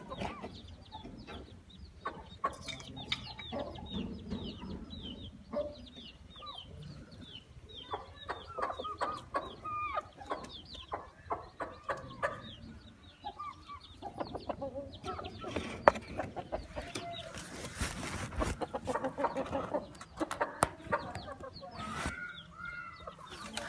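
Chickens clucking, with many short calls repeated throughout and a few seconds of rustling noise about two-thirds of the way through.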